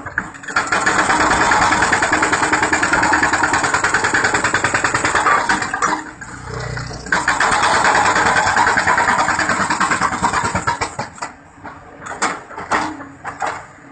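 Hydraulic breaker on a Caterpillar 320D excavator hammering rock in rapid, even blows: one long burst, a short pause, a second burst, then a few separate knocks near the end. The excavator's engine runs underneath.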